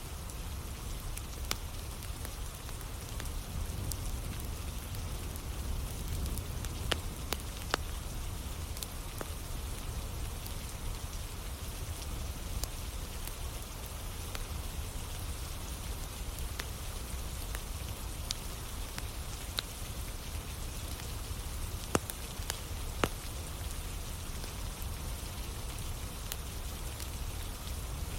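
Steady rain with a low rumble underneath, dotted with sharp crackles and pops from a burning wood campfire, a few louder pops standing out twice.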